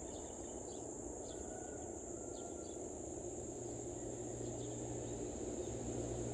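Insects trilling steadily in the surrounding weeds and grass, a continuous high-pitched buzz, over a low hum that grows a little toward the end.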